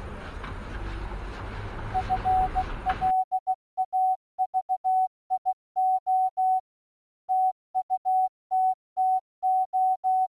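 Electronic beeps at one steady pitch, switching on and off in an irregular pattern of short and long beeps like Morse code, starting about two seconds in. Under the first three seconds runs a rough noisy background that cuts off suddenly.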